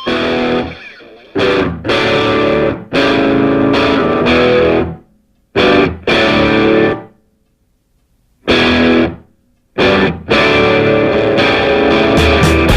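Rock music with distorted electric guitar playing stop-start chords that cut off sharply, with a pause of about a second and a half near the middle.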